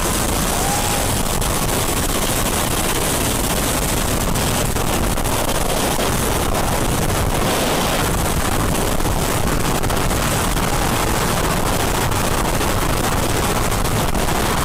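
Steady rush of wind over an on-ride camera aboard Formula Rosa, an Intamin hydraulic launch coaster, travelling at high speed just after its launch, over the top hat and into the drop.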